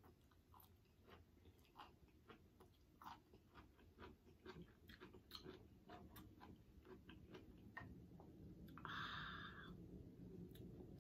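Faint, close-up eating sounds: a person sucking and chewing on sauced Cornish hen meat and licking her fingers, with many small irregular mouth clicks and smacks. About nine seconds in comes a short hiss, the loudest sound.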